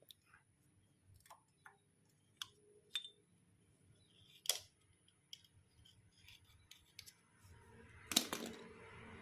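Scattered light metallic clicks and taps of motorcycle starter motor parts being handled during reassembly, with the armature being fitted into the housing. There is a sharper click about four and a half seconds in, and a louder clatter of several clicks about eight seconds in. A noise starts growing shortly before the end.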